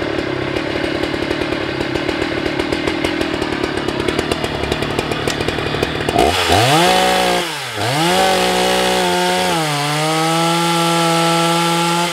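Husqvarna 181 SE two-stroke chainsaw idling unevenly for about six seconds, then throttled up and cutting into a log. The engine pitch dips once, comes back up, and then holds slightly lower and steady under the load of the cut.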